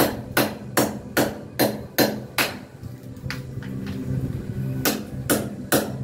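Steel claw hammer striking a chisel held against a cement-plastered concrete wall, chipping a groove along a marked line: a steady run of sharp metal strikes about two or three a second, a short pause about halfway, then a few more strikes near the end.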